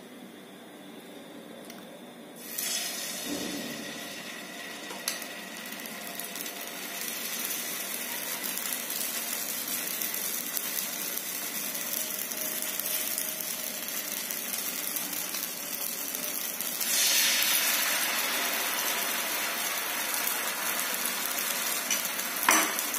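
Maize-flour batter sizzling on a hot, oiled nonstick tawa as small thepla are poured and spread with a spoon. The steady hiss starts about two and a half seconds in and grows louder again a little past the middle.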